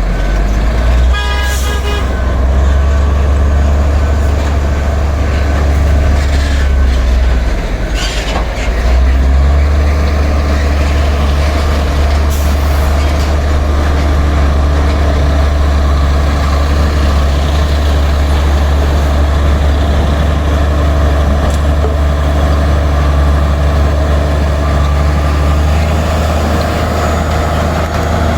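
Bulldozer's diesel engine running steadily under load. About a second in there is a brief rapid clatter, and around eight seconds in the engine note dips briefly before picking up again.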